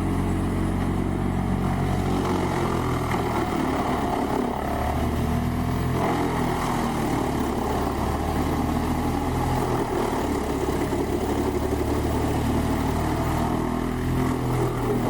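A whole tree chipper's engine running steadily, with a rough, noisy layer over it. Its pitch shifts in small steps a few times.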